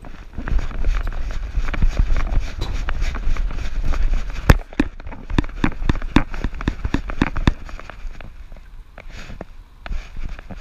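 Rapid knocks and rattles from a GoPro mount strapped to a running dog's harness, over a low rumble of wind and jostling on the microphone. The knocks come thick and fast for about the first seven seconds, then thin out.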